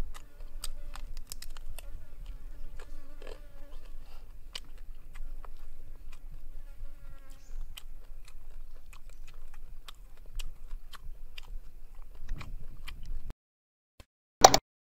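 Close-miked eating sounds: a person chewing and biting into grilled quail, with many small wet and crunchy clicks over a low rumble and a faint steady buzz. The sound cuts out about 13 seconds in, and a single sharp pop follows near the end.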